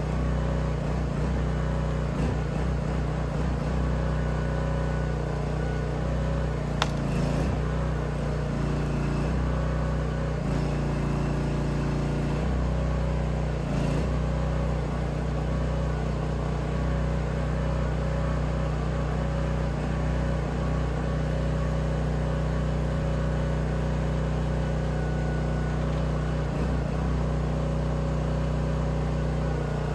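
An engine runs steadily, powering a hydraulic log-loader crane on an ATV log trailer as it lifts and swings a log onto the trailer. A single sharp knock comes about seven seconds in.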